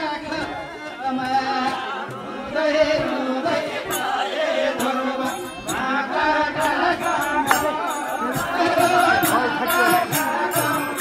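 Group of voices singing a Nepali devotional bhajan to harmonium, with sharp percussion strikes that come thick and fast from about four seconds in.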